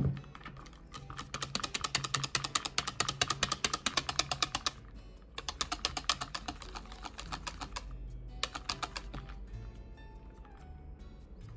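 Wire balloon whisk beating thickened cream by hand in a mixing bowl, its wires clicking rapidly against the bowl in two long runs with a short pause between. The cream is being whipped until it stiffens into Chantilly cream.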